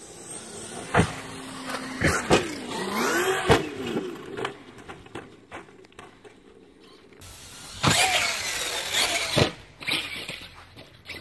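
Radio-controlled monster trucks' motors whining, rising and falling in pitch as they accelerate and slow, with several sharp knocks in between.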